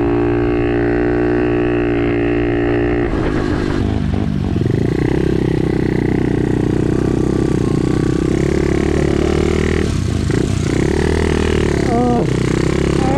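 SSR pitbike's small single-cylinder engine under way, holding a steady pitch at first, then the revs waver and dip, rising and falling again near the end.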